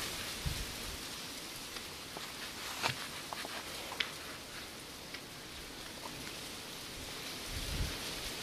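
Steady hiss like rain falling, with a few light ticks about three and four seconds in.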